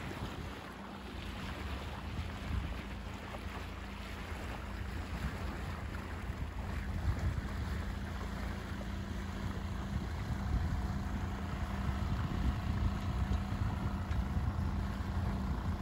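Small outboard motor running steadily, pushing a small sailboat along, with wind buffeting the microphone; the motor grows a little louder in the second half.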